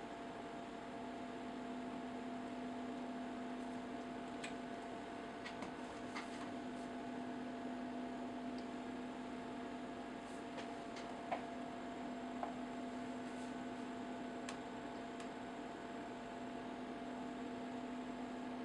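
Steady electrical hum with several higher overtones, over a faint hiss, with a few faint ticks, the sharpest about eleven seconds in.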